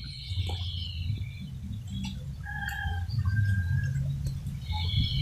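Birds calling: a falling chirping call at the start and again near the end, and two short, clear notes in the middle, over a steady low rumble.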